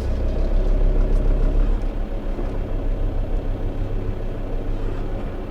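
A car driving along: steady engine and road noise, a low hum with faint engine tones that holds even throughout.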